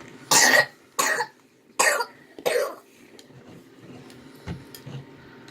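A person coughing four times in quick succession, each cough short and harsh, over about two and a half seconds.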